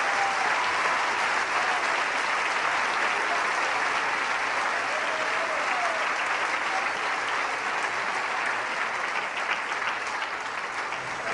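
Large crowd applauding steadily, easing off slightly near the end.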